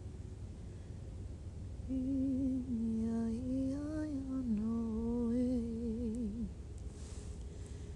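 A woman's improvised, wordless humming: one slow, wavering phrase that starts about two seconds in, slides up and down, and trails off with a wobbling fall shortly before the end.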